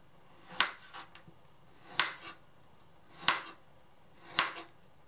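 Kitchen knife slicing through a peeled burdock root and striking a cutting board: four separate cuts, about one every second and a quarter.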